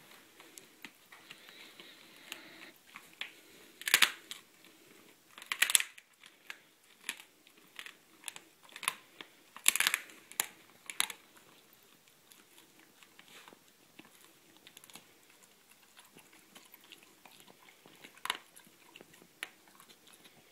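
A pit bull chewing and crunching raw venison ribs: irregular sharp bone cracks, loudest about four, six and ten seconds in, with softer gnawing clicks between.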